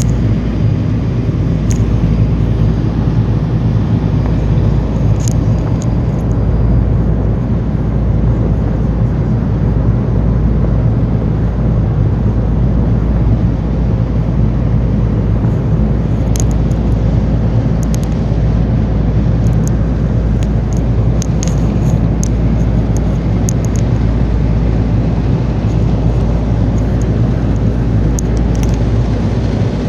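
Boat engine running steadily at cruising speed, a constant low drone heard from the stern, with wind rushing over the microphone.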